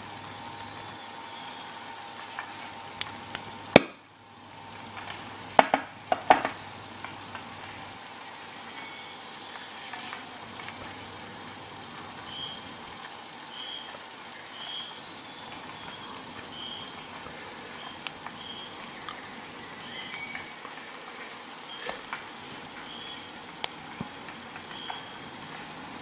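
Sharp metallic clicks of a folding multi-tool being handled and opened: one loud snap about four seconds in and a quick cluster of clicks about two seconds later. Faint steady hiss with a thin high tone behind, and soft high pips about once a second in the second half.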